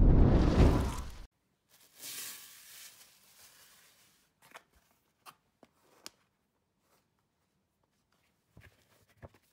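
A loud, deep sound effect for a flaming logo card ends sharply about a second in. A soft plastic rustle follows, then a few faint clicks and taps as flour is shaken from a plastic tub over dough in a plastic bowl.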